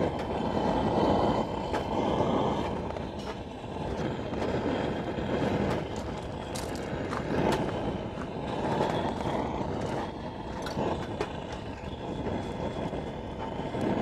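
Butane torch on a portable gas canister running, its flame blowing into dry oak firewood to light a campfire: a steady, low rushing noise that swells and dips, with scattered small clicks.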